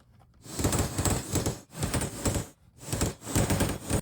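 A hammer striking a punch set on a saddle rivet over a steel vise anvil, peening the rivet flat. It comes as three runs of quick taps with short pauses between them.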